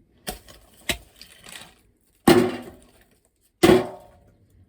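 Lumps of coal being dug out and clattering, with a few light knocks, then two loud clattering strokes about a second and a half apart.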